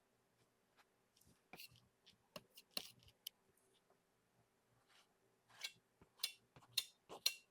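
Faint, short scratchy strokes of a painting tool scrubbing oil paint onto a canvas: a few strokes a second or two in, then a quicker run of them near the end.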